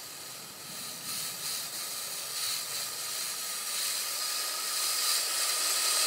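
Kyosho Blizzard SR radio-controlled snowcat's electric drive running, with a hiss and a faint steady whine as its tracks churn through snow, growing steadily louder as it approaches.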